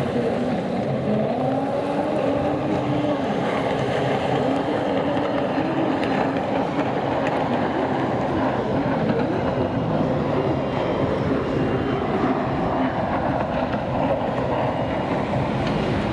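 Racing jet ski engines running at high revs, heard from shore, their pitch rising and falling as the machines accelerate and turn.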